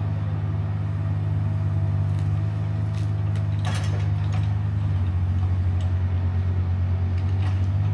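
Mini excavator's diesel engine running steadily under load, with a fast low pulsing. A couple of sharp knocks come about three to four seconds in, as it works the trees.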